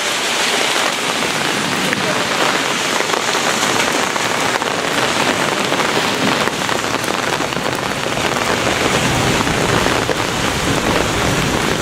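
Heavy thunderstorm rain coming down steadily, an even hiss of rain on surfaces, with a low rumble building in the second half.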